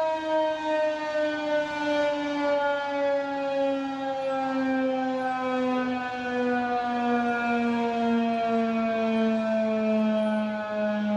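Federal Signal 2001-130 electromechanical outdoor warning siren sounding the steady Alert signal, the tornado watch tone. Its single tone slides slowly and steadily lower in pitch while its loudness wavers slightly.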